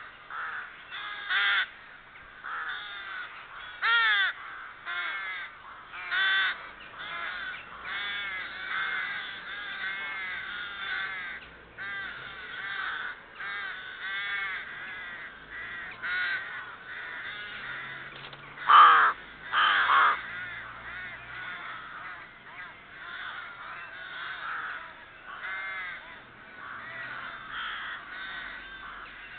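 Rooks cawing: many calls one after another, with two louder calls close together about two-thirds of the way through.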